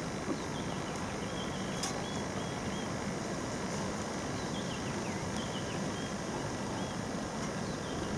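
Steady low background rumble with faint, short, high bird chirps coming in a few small runs, and one brief click.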